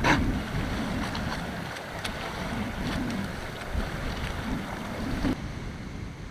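Small boat on open water: wind buffeting the microphone and water washing against the hull, with a short sharp rush of sound right at the start. The upper hiss thins out about five seconds in.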